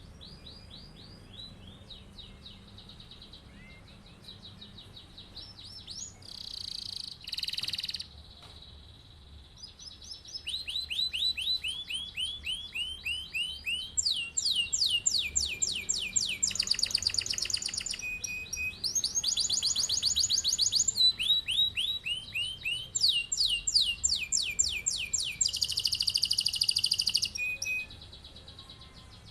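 Canary singing: rapid rolling trills of quickly repeated high notes. Softer phrases come first, then a loud, near-unbroken roll runs from about a third of the way in until just before the end.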